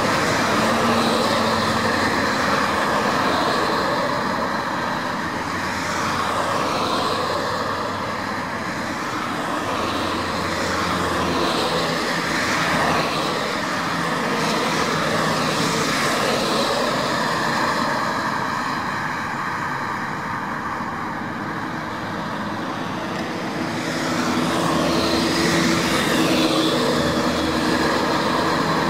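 Steady engine and road noise of a motor vehicle travelling on a highway, the engine note shifting a few times, dipping slightly about twenty seconds in and rising again near the end.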